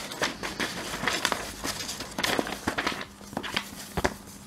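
Paper rustling as the pages of a model-kit instruction manual are flipped and handled, a string of quick, irregular crinkles.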